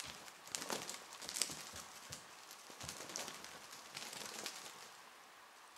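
Cats' paws and claws tapping and scuffling on a wooden floor, scattered light taps and rustles that thin out near the end.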